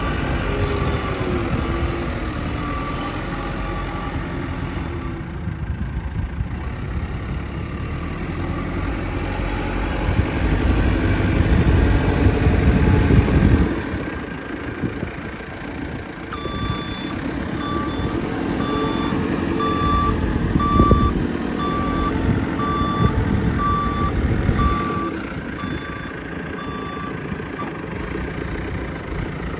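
JCB 3CX backhoe loader's four-cylinder diesel engine running, working harder for a few seconds near the middle. Past the halfway point its reversing alarm beeps at an even rate for about ten seconds.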